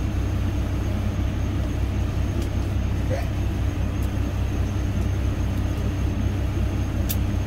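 Steady low rumble of a Kenworth T680 semi truck's diesel engine idling, heard inside the cab. A few light clicks and one sharp click about seven seconds in as the booster's power cable is handled and plugged in.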